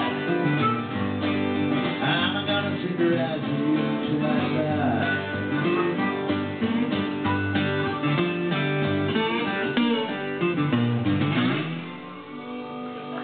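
Live country music: two acoustic guitars strumming with a harmonica playing the lead, the playing getting quieter near the end.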